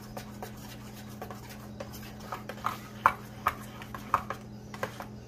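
A spoon beating pumpkin and egg batter in a stainless steel bowl, with irregular clicks of the spoon against the bowl, louder and closer together in the second half.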